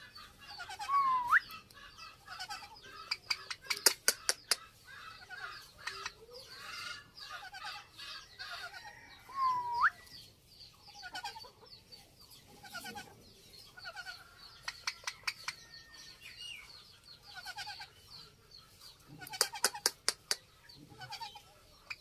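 Indian ringneck parrots calling during courtship: soft chattering, clucking notes repeated throughout, and two loud calls that dip then rise sharply in pitch, about a second in and near ten seconds. Bursts of sharp clicks come around four seconds and again near twenty seconds.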